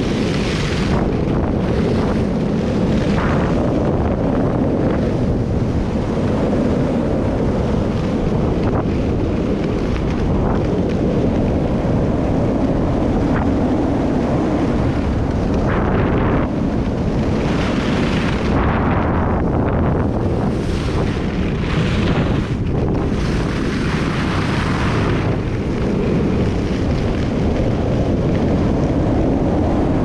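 Wind buffeting the microphone during a fast downhill run on groomed snow, a steady low rumble. Edges scraping the snow in the turns add a hiss several times over it, longest a little past halfway through.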